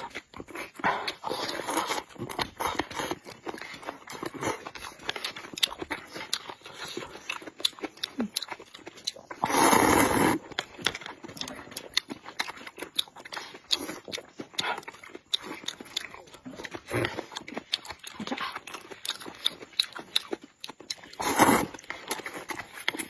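People slurping and chewing wide noodles from cups of spicy broth. Many small mouth smacks run throughout, with a loud slurp about ten seconds in and another near the end.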